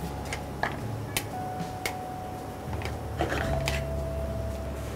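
Stainless steel sauté pan tossed over a gas range and stirred with metal tongs: several sharp metallic clinks and knocks scattered through, over a steady low hum.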